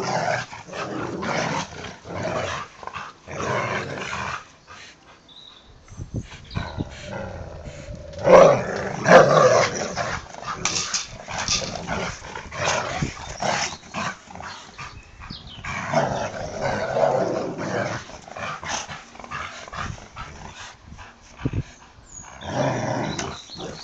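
A Labrador and a boxer-Labrador cross growling in play as they tug on a rope toy between them. The growls come in irregular bursts, loudest about eight to ten seconds in.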